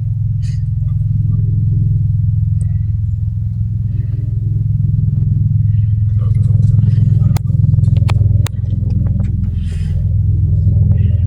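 Sikorsky HH-60W Jolly Green II helicopter running loud and steady, a deep rapid beat of the rotor blades, growing a little louder over the first couple of seconds. Three sharp clicks come about two thirds of the way through.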